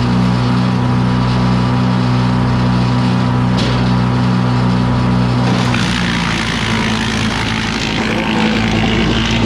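Wood chipper's engine running steadily at speed with a low, even hum. About six seconds in the hum wavers and a rougher noise rises for a few seconds, then the steady hum returns.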